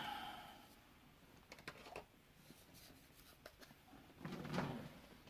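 Faint scattered clicks and taps of a diamond-painting drill pen picking up resin drills and pressing them onto the adhesive canvas, with a louder rustling, clattering stretch near the end.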